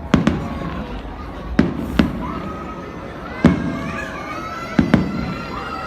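Fireworks display: aerial shells bursting with sharp bangs, about seven of them, several in quick pairs, each trailed by a low rumbling echo.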